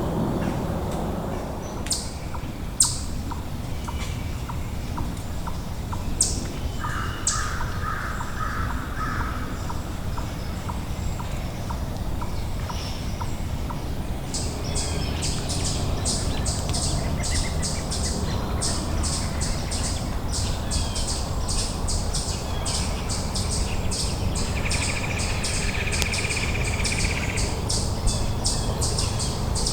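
Wild birds calling, with scattered chirps at first and then, from about halfway, a fast, even series of high chirps, about three a second. A steady low rumble runs underneath.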